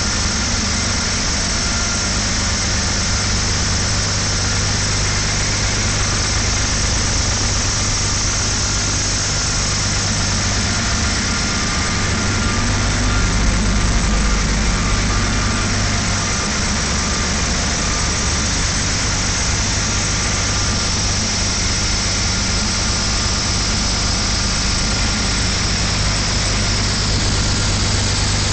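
JICHAI 500 kW biomass-gas generator set's spark-ignited gas engine running steadily at about 1000 rpm under test. There is a brief swell in the low rumble about halfway through.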